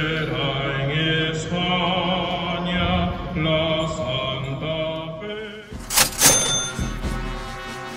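Music: slow sung chant with held, wavering voices, broken about six seconds in by two loud crashing hits, after which other music carries on.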